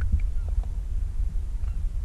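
Low, steady throbbing rumble of an airboat's engine idling.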